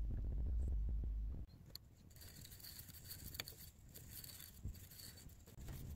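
A low hum that cuts off about a second and a half in, followed by a screwdriver turning the threaded worm-axle pin out of an old adjustable wrench: faint metal scraping and hiss, with a few sharp clicks.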